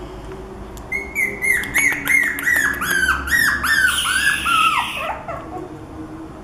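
Four-week-old Havanese puppy yelping: about ten short, high, arching yips, two or three a second, ending in a longer falling whine about five seconds in.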